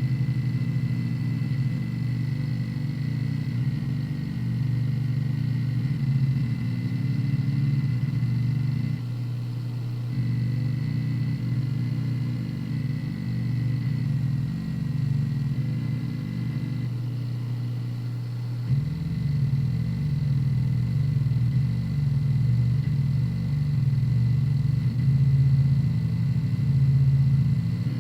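Hard disk drive seeking continuously while defragmenting: the head actuator gives a loud, low rumbling clatter that shifts in character every several seconds, over a faint steady high whine.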